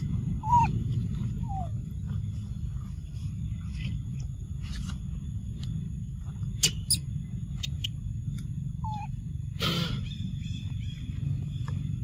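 Three short, falling squeaks from young macaques: two near the start and one about nine seconds in. Between them come a few sharp clicks and a brief loud rustle about ten seconds in, over a steady low rumble.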